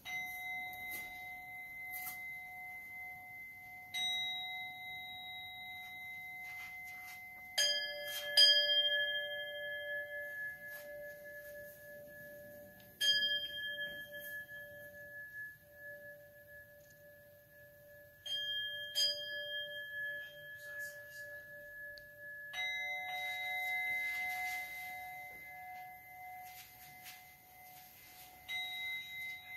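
Two Buddhist bowl bells of slightly different pitch, struck in turn about nine times, each strike ringing on for several seconds so that the tones overlap. The lower bell is twice struck in a quick double stroke. The strikes mark the officiant's bows during the service.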